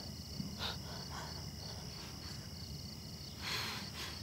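Crickets chirping in an even, pulsing rhythm against quiet background hum, with a soft breath-like rush of noise about three and a half seconds in.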